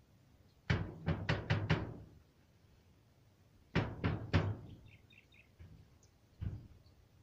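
Sharp knocks in quick runs: five within about a second, three more a couple of seconds later, then a single knock near the end.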